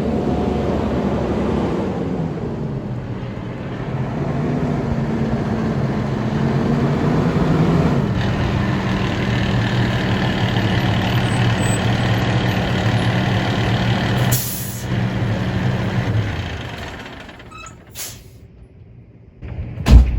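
A large truck's engine running with a steady hum that rises in pitch and then holds, with a short hiss of air brakes about two-thirds of the way in. The engine sound dies away a few seconds before the end, and a sharp knock comes right at the end.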